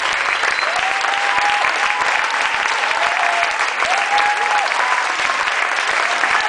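Audience applauding a stage performance: dense, steady clapping from many hands.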